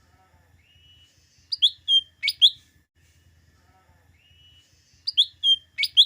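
A small leafbird (cucak ijo mini, or cucak daun) singing two matching phrases, one about a second in and one near the end. Each is a soft rising whistle followed by about four loud, sharp, quickly sweeping notes.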